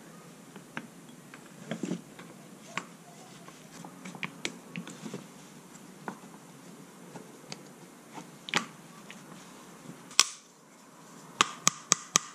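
Scattered light clicks and taps of metal parts as the brake pads and pin are fitted back into a 1983 Honda Shadow VT750C front brake caliper by hand. About eleven seconds in, a ratchet wrench starts clicking rapidly and evenly, about six clicks a second.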